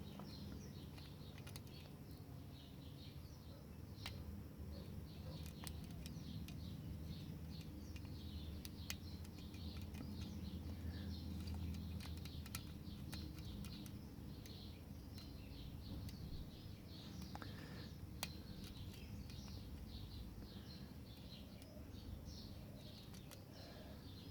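Faint birds chirping in the background over a low steady hum, with occasional soft clicks of lock-picking tools working inside a laminated padlock.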